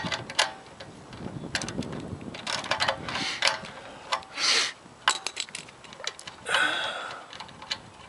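Ratchet wrench clicking in short irregular runs as a 10 mm carburetor mounting nut is worked loose, with scattered taps of the tool on metal and a couple of brief scraping rustles, one midway and one near the end.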